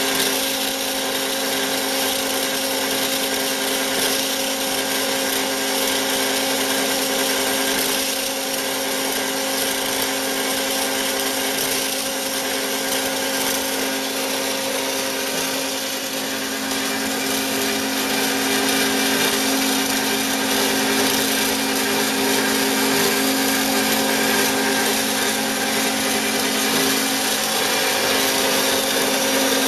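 Bigstone CF450 horizontal bandsaw running: a steady machine hum over a continuous hiss, growing slightly louder about two-thirds of the way through.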